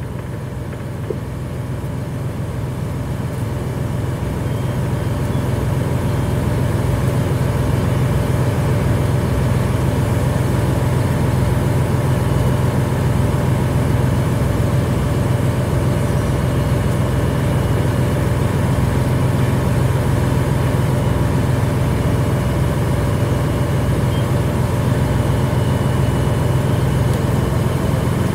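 Fire engine running steadily, its engine noise growing louder over the first several seconds and then holding at a loud, even drone.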